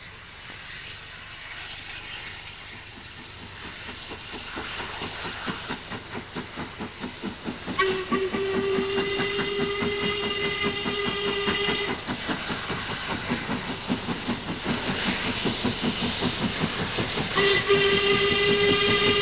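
LMS Princess Coronation Class 4-6-2 steam locomotive No. 46229 Duchess of Hamilton working hard, with its chimney exhaust beating in a steady rhythm and steam hissing, growing louder as it comes closer. Its whistle sounds about eight seconds in for some four seconds, and again near the end.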